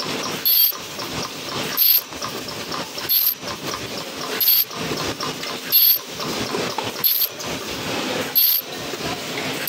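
Double-wall paper cup sleeve machine running in steady cycles: continuous mechanical clatter, with a short sharp hiss about every 1.3 seconds as each cup is processed.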